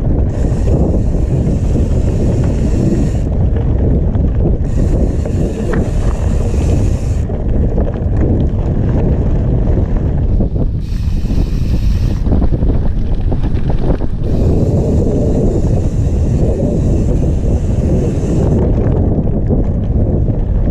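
Wind buffeting the microphone of a mountain bike's handlebar camera during a fast descent on a dry gravel trail, a loud, steady low rumble. A higher hiss comes and goes four times.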